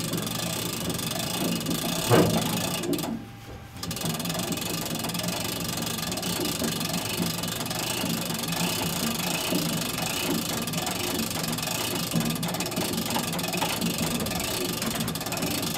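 Old tow truck's engine running steadily with a mechanical clatter, and one sharp knock about two seconds in.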